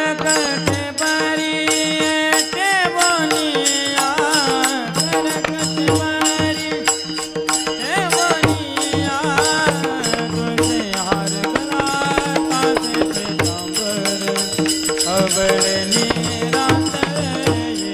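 Indian devotional bhajan music between sung lines: a melodic line with bending ornaments over hand-drum playing and dense, quick percussion strokes.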